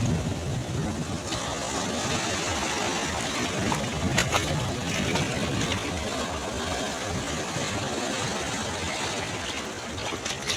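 Sea waves washing onto the shore: a steady rushing surf noise with a few brief crackles.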